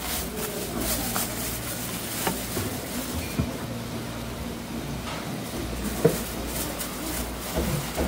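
Thin clear plastic bag crinkling and rustling as it is packed and gathered to be tied, with short scattered crackles and a sharper one about six seconds in, over a steady low background hum.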